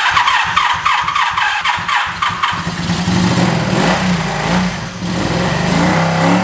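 A 1983 Honda Magna's V4 engine being cranked on its electric starter with a quick, even chug, catching about two and a half seconds in and settling into a steady run, with a short blip of the throttle near the end. This is its first start after sitting for over a decade.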